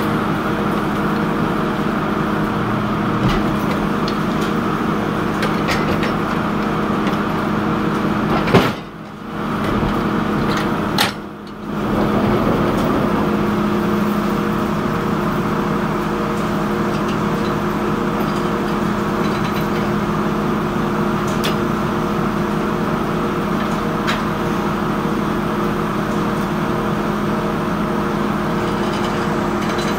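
Circular sawmill machinery running with a steady, even hum made of several steady tones. The sound drops away briefly twice, around nine and eleven seconds in.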